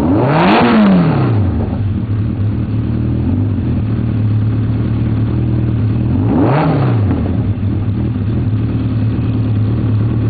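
A 2.6-litre Hartley H1V8 engine, a V8 built from Hayabusa motorcycle engines, idling in a Caterham. The throttle is blipped twice: a quick rev up and back down about half a second in, and another about six and a half seconds in.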